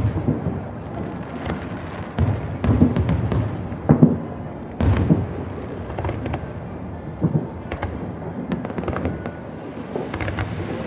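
Aerial fireworks shells bursting in the sky: a string of deep booms and crackles, irregularly spaced, with the loudest bangs about two, four and five seconds in.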